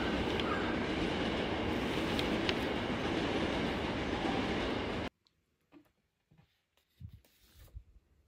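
Steady rumble of a train heard from inside the carriage, with a few light clicks, cutting off abruptly about five seconds in. After that, near quiet with a few faint soft knocks and rustles.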